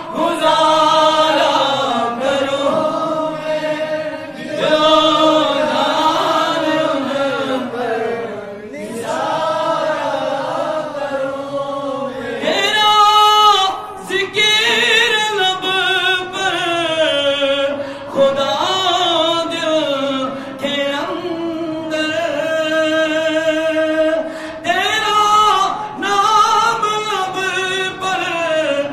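A man singing a devotional Urdu naat without instruments, amplified through a microphone, with long held notes that bend and turn in pitch and brief pauses for breath.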